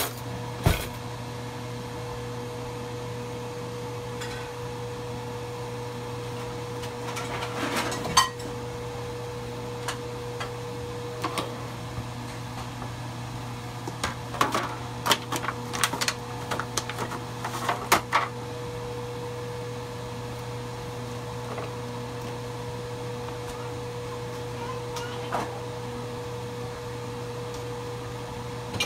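Steady hum of a running kitchen appliance or fan. Occasional sharp knocks and clatters sound over it: a loud one about eight seconds in, and a bunch of them in the middle.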